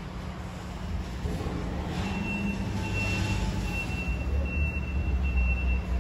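Heavy diesel truck engine running at idle, a low steady rumble that grows louder about two seconds in. A thin high tone sounds over it from about two seconds in, breaking off briefly now and then.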